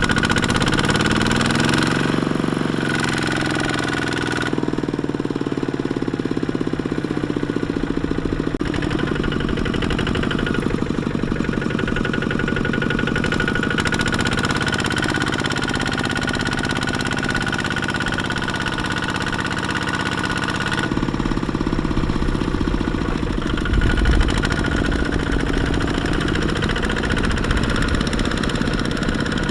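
Single-cylinder Kubota diesel engine of a two-wheel farm tractor running, speeding up in the first couple of seconds and then holding a steady beat, with a thin high whine that drops out and returns.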